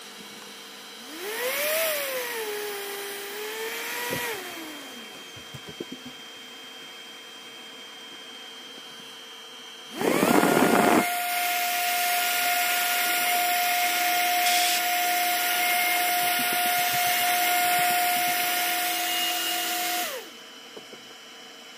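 Spindle motor of a FoxAlien 40x40 XE CNC router running briefly near the start, its whine rising, wavering and falling away. About ten seconds in it starts again with a loud rush of noise, runs at a steady high whine for about ten seconds, then winds down.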